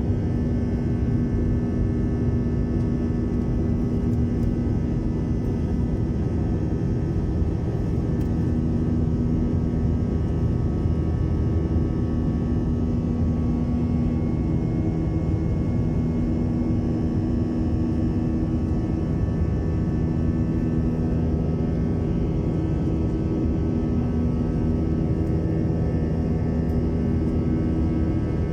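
Airbus airliner's jet engines running with a steady drone, several constant humming tones over a rushing noise.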